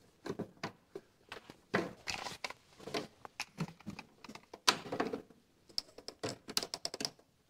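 Screwdriver working terminal screws in a metal breaker panel as wires are fastened to the breakers and bus bar: irregular clicks, taps and scrapes of metal on metal, with a quick run of fine clicks near the end.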